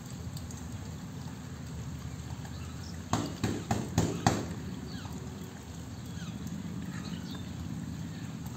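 Royal Enfield Bullet motorcycle with a low, steady rumble, broken about three seconds in by five sharp, loud bangs in quick succession as the rider works the bike.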